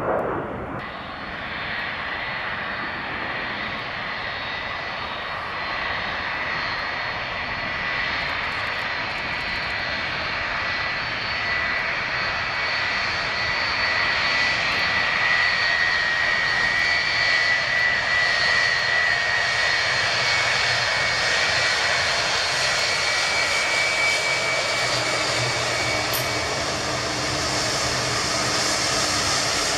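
Boeing 757-300 jet airliner's engines whining steadily as it rolls along the runway after landing, with a high-pitched fan tone. The whine grows louder towards the middle as the aircraft nears and passes, and a lower hum joins in near the end.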